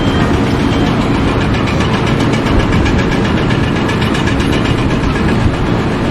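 A heavy machine's engine running steadily, with a fast, even clatter of about five ticks a second over it.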